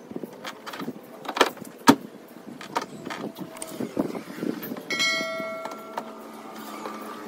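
Scattered sharp clicks and knocks as the old, hardened outer window weather strip on a Honda City door is worked and pried up by hand from the door's top edge. About five seconds in, a bell-like ringing tone with several pitches sounds for about a second, one note lingering a little longer.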